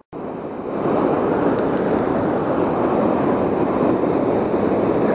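Steady rush of river water pouring over and below a low dam, loud and even, with some wind buffeting on the microphone.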